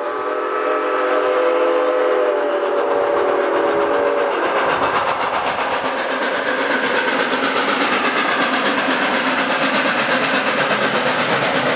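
Steam locomotive No. 7470 blowing its whistle, a chord of several tones held for about four seconds. Then the locomotive and its coaches run past close by in a steady noise of exhaust and wheels.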